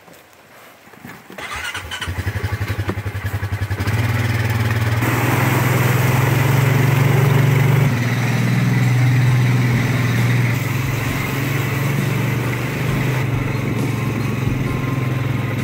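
ATV engine starting up about a second and a half in and running with a low pulsing beat, then from about four seconds running louder and steady as it drives off.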